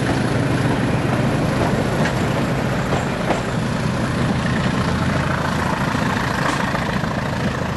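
Class 20 diesel locomotive's English Electric engine chopping away steadily as it hauls a first-generation DMU past and away, with a few sharp clicks from the passing train.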